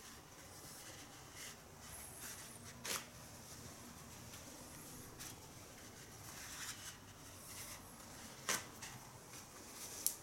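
Toilet paper being unrolled from the roll, torn off and folded by hand: faint paper rustling with a few sharper snaps or rips, the two loudest about three seconds and eight and a half seconds in.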